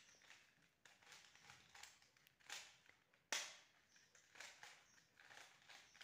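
Plastic 3x3 Rubik's cube being turned by hand, giving faint scattered clicks as its layers snap round, with one sharper clack a little past halfway.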